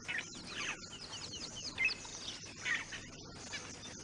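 Several birds chirping: many quick, falling chirps in overlapping bursts, over a steady background hiss of outdoor ambience.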